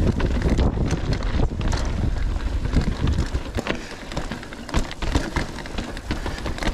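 Mountain bike being ridden over rocky trail: irregular clicks, knocks and rattles from the bike and tyres over rock, with wind buffeting the microphone.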